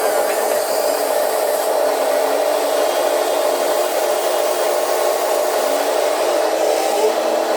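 Electric motors and gearboxes of Huina RC construction models running, a steady whine with a hiss over it.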